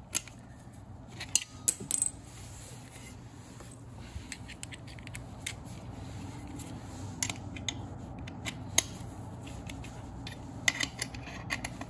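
Scattered light metallic clicks and clinks of a screwdriver, screws and the sheet-metal housing of a furnace inducer motor being handled, in clusters about a second and a half in, around the middle and near the end.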